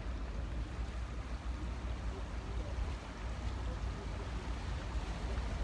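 Harbour ambience: a steady low rumble under an even background hiss, with faint distant voices.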